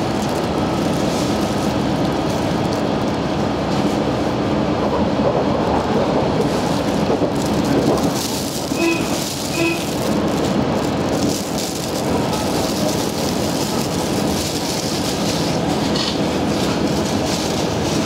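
KiHa 110 series diesel railcar running at speed, heard from inside the cabin: a steady rumble of engine and wheels on the rails. Two short tones come about halfway through.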